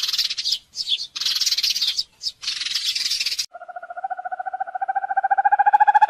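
A sparrow chirping in quick, broken runs for about three and a half seconds. Then an owl's trill starts: a fast, even, pulsed note that grows louder and rises slightly in pitch.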